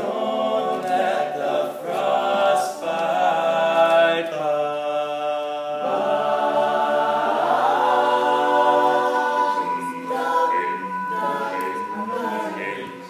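All-male a cappella group singing: a male soloist leads over sustained vocal backing chords, with a long held note in the middle.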